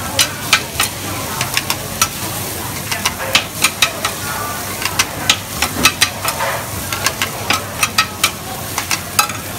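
Cubes of radish cake (char koay kak) and bean sprouts sizzling on a large flat wok, with two metal spatulas scraping and clanking against the pan in quick, irregular strokes.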